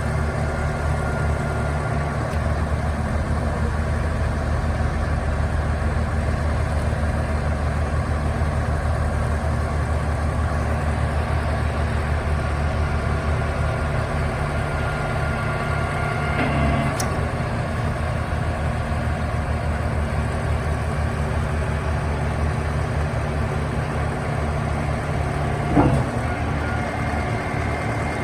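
The engines of a Warner & Swasey Hopto H-1900 hydraulic excavator run steadily while its hydraulics work the bucket to purge air from the bucket cylinder. The engine note shifts about two-thirds of the way through, and a short sharp sound comes near the end.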